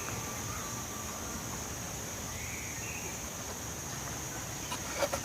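Steady high-pitched drone of crickets or other insects, with a faint bird call about two seconds in and a few light clicks near the end.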